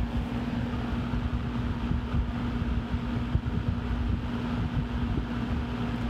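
Vintage Eskimo 20-inch box fan, model 2020, running on high: a steady rush of air with a steady motor hum underneath, and the fan's airflow buffeting the microphone.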